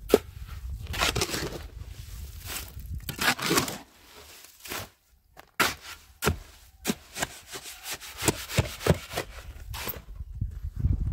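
Steel shovel scraping and scooping dry earth and working it in a metal wheelbarrow: an irregular run of gritty scrapes and knocks, with a short lull about four seconds in.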